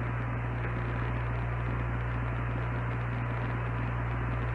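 Steady static hiss with a strong low mains hum on the Apollo 11 air-to-ground radio and telephone link, an open channel between transmissions. A faint steady tone sits above the hiss.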